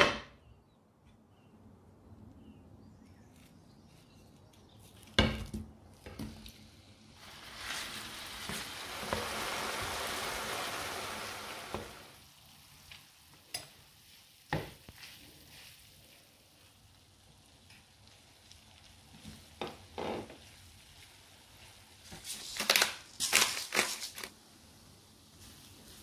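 Hard household items knocked and set down several times, with a cluster of clatters near the end. In the middle a hiss swells and fades over about four seconds.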